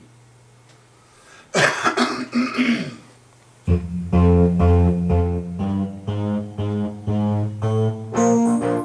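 A person coughs about a second and a half in. Nearly four seconds in, instrumental music starts, with chords over a strong bass line changing at an even pace.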